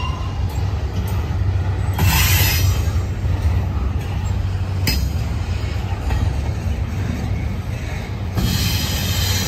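Double-stack intermodal freight train rolling past, a steady low rumble of wheels on rail. Two short bursts of high-pitched wheel noise come about two seconds in and near the end.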